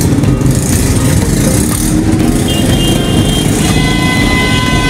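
Busy street traffic: car and motorbike engines running and passing in a steady low rumble. A vehicle horn sounds steadily for about a second near the end.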